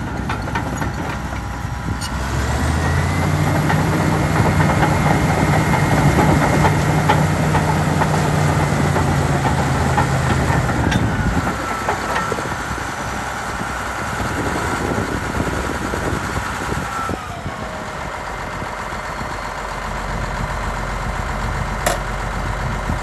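1990 Caterpillar D6H LGP crawler dozer's turbocharged six-cylinder diesel running as the machine drives and turns. The engine revs up about two seconds in and holds, then eases off about halfway through. A high whine follows the engine speed and steps down twice. A sharp clank comes about a second before the end.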